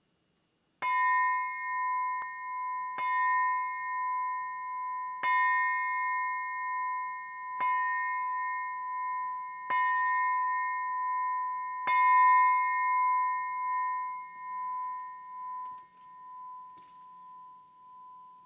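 Small hanging brass bell struck six times with a soft-headed mallet, about two seconds apart, rung to open a prayer service. Each strike rings on one clear tone with higher overtones, and the ringing slowly fades after the last stroke.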